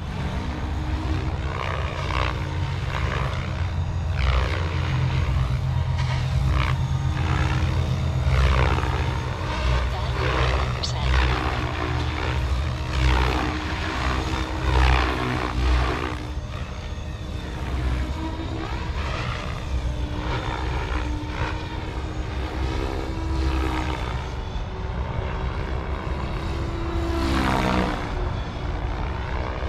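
Electric RC helicopter (SAB Kraken 580 on 6S) in flight: a steady low drone from the main rotor, with the whir of blades and motor rising and falling in pitch again and again as it manoeuvres and passes by, running at its lowered head speed.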